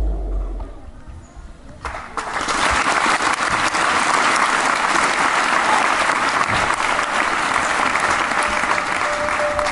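Audience clapping, starting about two seconds in after a brief lull as the music stops, and continuing steadily as sustained applause.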